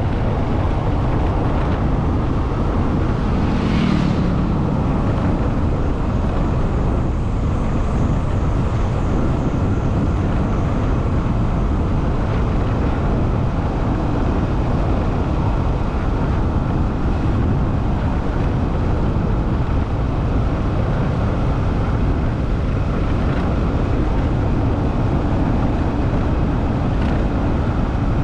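Steady noise of a vehicle on the move, road and engine noise heaviest in the low end, with a short higher sound about four seconds in.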